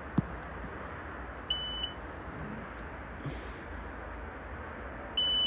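A short, high electronic beep sounding twice, about three and a half seconds apart, over a steady faint low hum.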